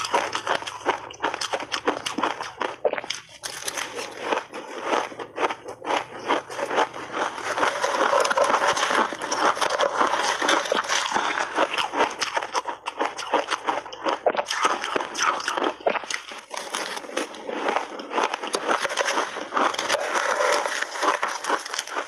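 Close-up crunching and chewing of shaved ice coated in milk powder, a dense, rapid crackling crunch that goes on without a break.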